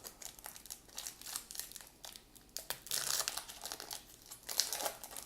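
Crinkling and crumpling of a foil baseball-card pack wrapper, an irregular run of crackles that gets busiest about three seconds in and again near the end.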